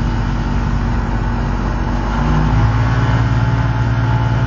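Aircraft engine running before take-off, its steady drone stepping up in pitch and getting louder about two and a half seconds in as it is throttled up.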